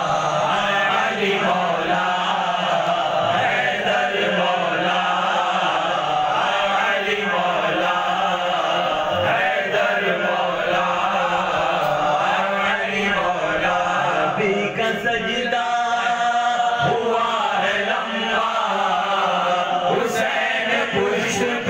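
A group of men's voices chanting a devotional manqabat refrain together, led by singers on microphones, with one voice's note held clearly about two-thirds of the way through.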